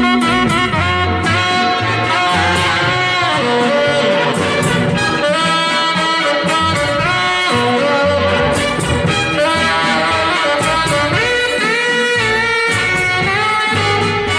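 Instrumental break in a vocal song: a band with brass and saxophones plays the melody over a bass line, with no singing.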